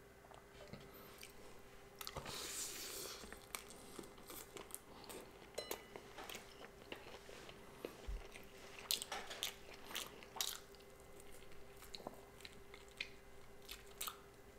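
Close-miked mouth sounds of biting into a shrimp California roll and chewing it: a noisy bite about two seconds in, then a long run of irregular small clicks and smacks as it is chewed.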